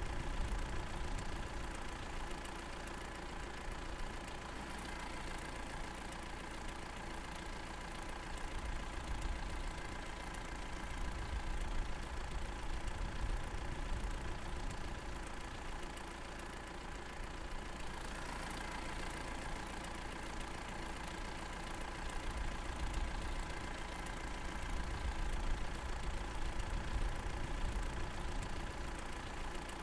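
Diesel engine of a Manitou MLT 625 telehandler idling steadily.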